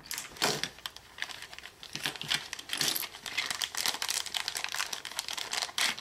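Thin clear plastic parts bag crinkling and rustling as it is handled, with light clicks of small plastic kit pieces.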